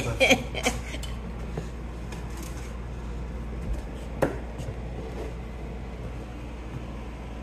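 Faint scraping and light knocks of a putty knife and trowel working mortar on a cement-board floor, over a steady low hum, with one sharp click about four seconds in.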